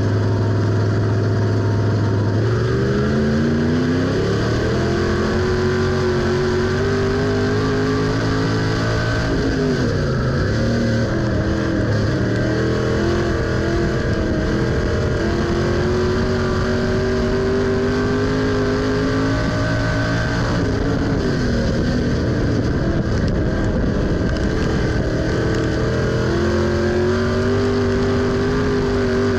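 USRA stock car's V8 engine heard from inside the car at racing speed. It holds a steady low note, then about two seconds in the pitch climbs as the car accelerates, and it rises and falls with the throttle, easing off twice, around ten and twenty seconds in, before pulling back up.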